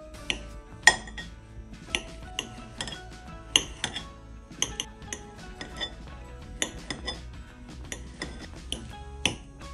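Table knife clicking against the bottom of a glass bowl as peeled bananas are sliced into rounds inside it. There is a sharp tap with each cut, a dozen or more at uneven intervals, over soft background music.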